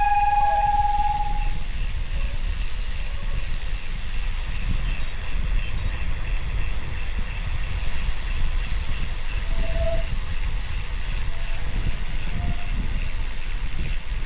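Bicycle disc brake squealing: one high, steady squeal about a second and a half long at the start, then two short squeaks later on. This is the squeaky disc rotor that has been sounding all ride. Under it runs a steady rumble of wind and road noise from riding on wet roads.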